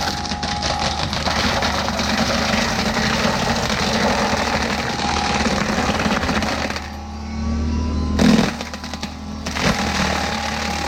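Excavator-mounted forestry mulcher running under a steady diesel hum and chewing through wood with dense crackling. It eases off briefly and then gives one loud crack a little after the 8-second mark.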